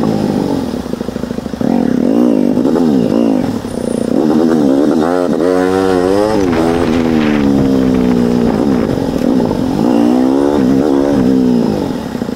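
Motorcycle engine ridden in stop-and-go traffic, its pitch rising and falling over and over as it accelerates and eases off.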